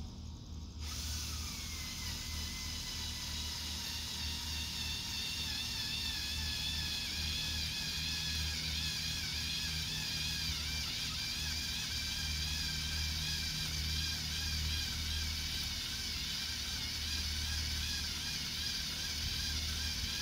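Power drill motor running with a K-Brands auger bit boring into dirt. Its whine starts about a second in and then runs steadily, wavering slightly in pitch.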